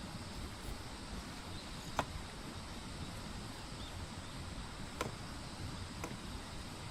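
Steady outdoor background noise with a low rumble, broken by three short, sharp knocks: one about two seconds in, then two more about a second apart near the end.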